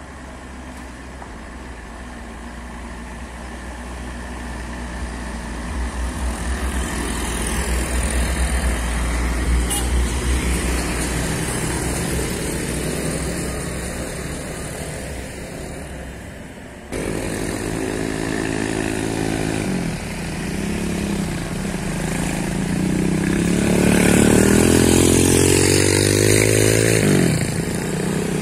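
Vehicle engines labouring up a steep hill one after another. In the first half an SUV's engine grows louder as it passes and fades away. After an abrupt cut, motorbike and scooter engines climb, their note rising in pitch to the loudest point near the end, then dropping as they go by.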